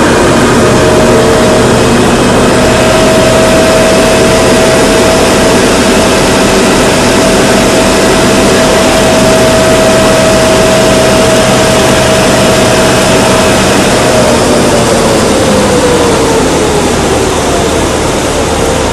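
Drilling rig machinery running loudly and steadily, with a motor whine that holds one pitch and then slides down in pitch and fades about three quarters of the way through, over a constant low hum.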